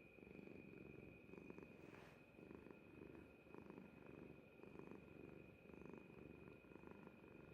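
Orange tabby cat purring, faint and steady, the purr swelling and fading with each breath a little more than once a second.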